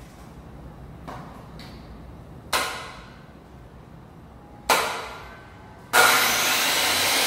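Sharp knocks of a tool striking old wooden parquet blocks as they are worked loose from the floor, a few seconds apart, the loudest two about two and a half and five seconds in. About six seconds in a loud steady machine noise starts abruptly and carries on.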